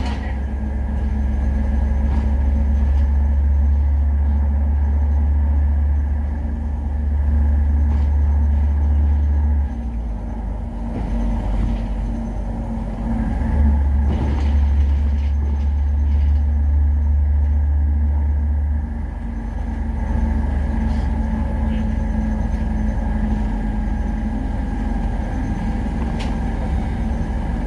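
City bus engine and drivetrain heard from the driver's seat while driving: a low drone that is heavy for about ten seconds, drops off, is heavy again for about five seconds, then stays lighter, as the bus accelerates and eases off.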